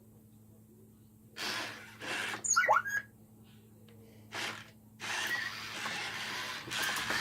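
Roboquad toy robot's leg motors whirring in short spurts, with a brief gliding squeal, then running more steadily from about five seconds in: its gears are slipping badly, so the robot can barely move.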